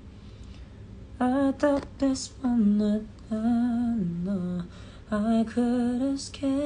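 A man's voice singing a wordless melody in held, wavering notes, starting about a second in.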